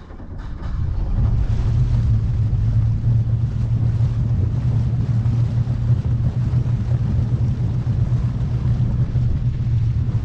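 Weldcraft jet boat's inboard engine coming up from a low level about a second in to a steady, loud drone under way, with the water jet churning the river behind the stern.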